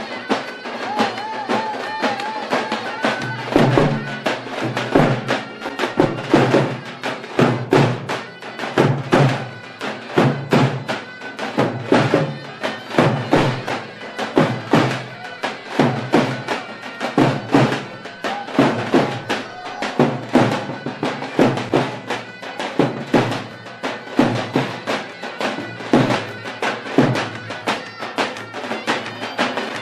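Davul and zurna folk band playing a lively dance tune: the double-reed zurna carries a sustained melody over the steady beat of several davul bass drums struck with sticks.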